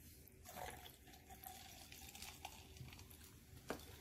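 Near silence: faint room tone with a few small, wet mouth clicks from chewing and swallowing, and one sharper click near the end.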